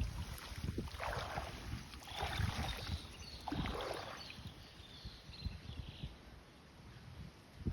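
Water splashing in three bursts about one, two and three and a half seconds in, over a low rumble of wind on the microphone.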